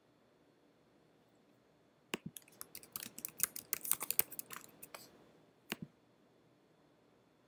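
Typing on a computer keyboard: a quick run of key clicks for about three seconds, then two separate clicks.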